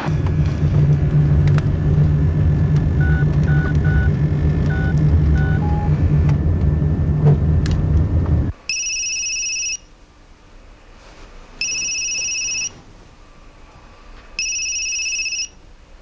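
A steady low vehicle rumble with a few short electronic beeps partway through cuts off after about eight seconds. A telephone then rings three times, each ring an electronic trill about a second long with pauses of about two seconds between rings.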